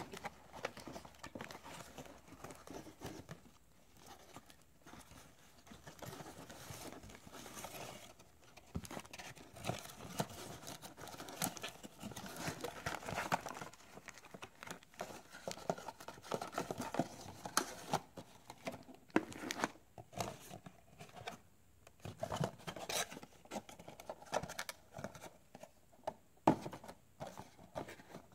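Cardboard sunglasses packaging and paper inserts being handled: an irregular run of rustling, sliding and crinkling, with light taps as pieces are set down.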